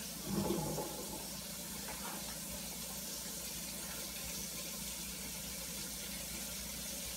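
Steady, faint sizzle of floured steak browning in a frying pan, with a soft knock about half a second in.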